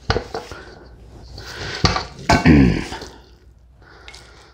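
A utensil knocks and scrapes against a bowl while moist cornbread stuffing is worked, with a few sharp clinks near the start and around two seconds in. Halfway through there is a short vocal sound from the cook.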